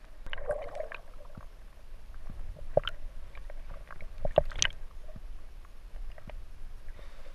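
Muffled underwater sound of a swimmer moving, heard through a waterproof camera housing: a low rumble of moving water with scattered clicks and knocks, the loudest about three and four and a half seconds in.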